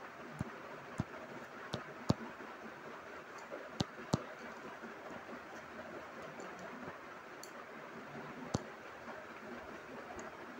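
Faint steady hiss with a handful of short light clicks, most in the first four seconds and one more near the end: a stylus tapping a tablet screen while writing.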